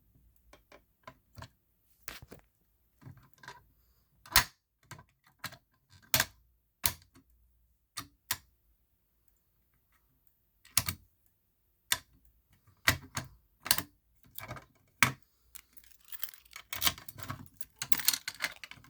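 Irregular sharp plastic clicks and knocks from a fire alarm pull station being handled and worked, growing into a busy rattle of clicks near the end.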